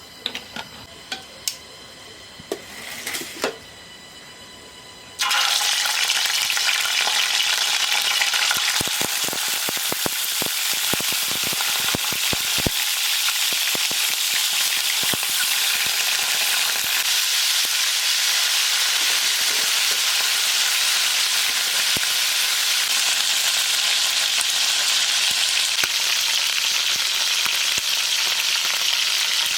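A few clicks, then food goes into hot oil in a pan about five seconds in and sizzles loudly and steadily. Sharp utensil clicks sound while it is stirred.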